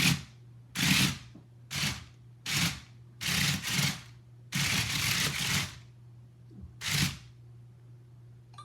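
WowWee CHiP robot dog's motors and wheels whirring in about seven short spurts as it keeps trying and failing to get up, over a steady low hum.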